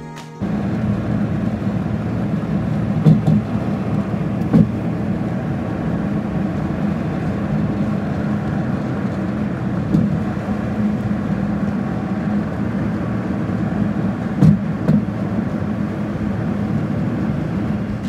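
Steady low road rumble inside a car cruising on a highway, with a few brief thumps along the way.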